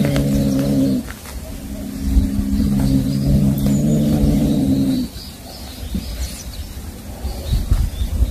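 Domestic cat growling low and long over a mouse it has caught, guarding its prey from another cat. One growl stops about a second in, and a second one runs about three and a half seconds before stopping.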